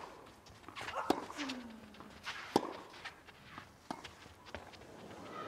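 Tennis ball struck back and forth with rackets in a baseline rally on a clay court: sharp pops about every second and a half, with one short falling grunt from a player after a hit.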